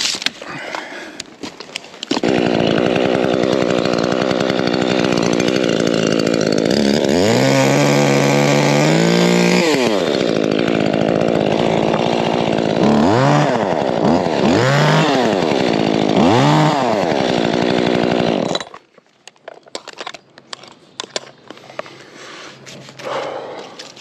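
Gas chainsaw starting up and running steadily, revving up with a rising pitch about a third of the way through. Three short throttle blips follow, and then it shuts off abruptly, leaving scattered crackling and clicking.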